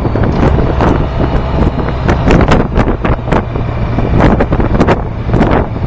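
Heavy wind buffeting on the microphone of a moving Honda VFR1200F motorcycle in irregular gusts, over the steady drone of its V4 engine.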